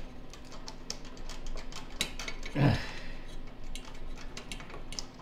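Needle-nose pliers and a carburetor's throttle-linkage rod clicking and scraping, many small metal ticks and taps as the linkage is worked loose. A short low grunt-like voice sound comes about halfway through.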